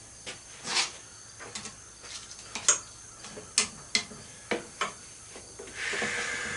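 Irregular clicks and light knocks of plastic and metal parts being handled and pried apart while dismantling an electric chipper shredder, with a short scraping rustle near the end.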